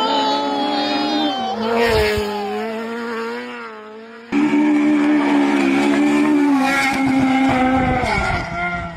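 Rally car engines running at high revs. About four seconds in the sound cuts abruptly to a second car held at a steady high pitch, which drops and fades near the end.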